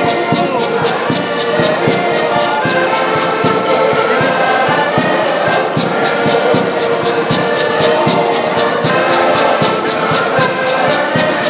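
Live band music: brass instruments playing sustained melody notes over a steady, quick drum beat.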